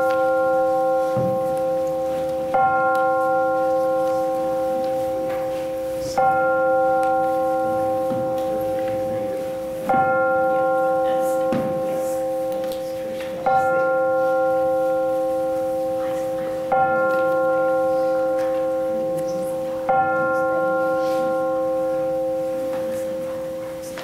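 A single church bell tolling slowly, struck six times about every three and a half seconds. Each stroke rings on into the next, and the last fades away near the end.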